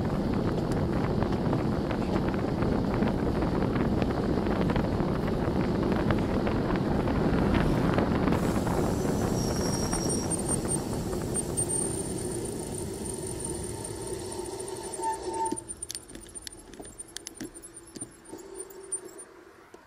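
Wind and road noise rushing over a bicycle-mounted camera's microphone while riding. About three-quarters of the way through it drops away as the bike slows, and rapid ticking takes over: the rear freewheel clicking as the rider coasts.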